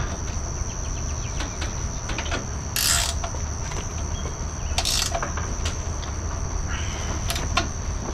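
Hand ratchet wrench worked on the miter saw stand's mounting bolts: scattered metallic clicks and two short rasping bursts of ratcheting, about three and five seconds in. A steady high-pitched insect drone runs underneath.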